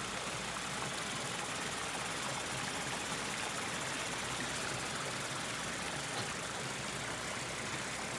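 Steady rush of warm spring water running out of the rocks at the spring's source.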